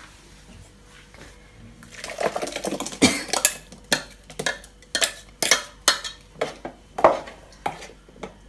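A kitchen utensil clinking and scraping against a dish, a quick run of clatters about twice a second after the first two seconds. The sound comes as freshly ground paste is checked and scraped.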